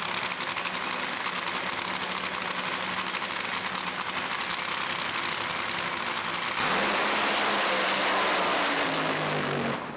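Drag-racing car engine running with a rapid crackle, then about six and a half seconds in it suddenly gets louder and its pitch rises as it revs up.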